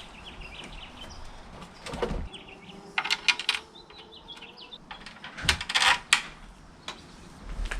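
Scattered sharp metallic clinks and knocks of bolts and hand tools being handled at the engine bay, loudest in a cluster about five to six seconds in, with faint bird chirps behind.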